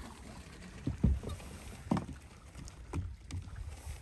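Small waves lapping against the hull of a fishing boat, with a few dull slaps, the loudest about a second in, over a low steady rumble.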